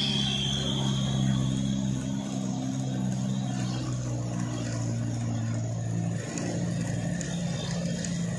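Diesel engines of Isuzu light trucks running under load on a steep, narrow road, a steady low engine drone whose pitch shifts a little about six seconds in.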